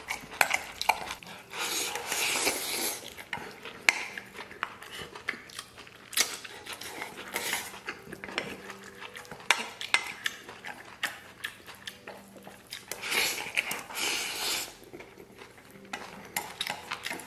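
Wooden chopsticks clicking and scraping against a stainless steel bowl as food is shovelled from the rim into the mouth. Two longer rushes of slurping come about two seconds in and again near the end.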